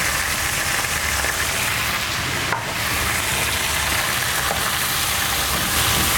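Cubes of lamb and fresh garlic sizzling steadily in oil in a frying pan, stirred with a wooden spatula.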